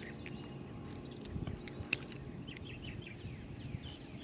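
Small birds chirping in many short, falling notes over a low rumble, with one sharp click about two seconds in.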